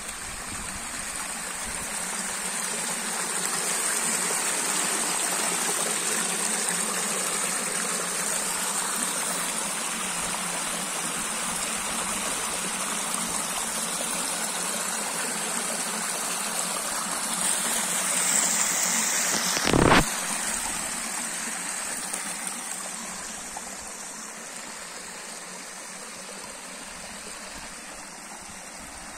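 Rain-fed runoff stream rushing over rocks and spilling down a low concrete ledge in small cascades: a steady rush of water that swells a few seconds in and grows quieter near the end. About two-thirds of the way through comes a single sharp knock, the loudest sound.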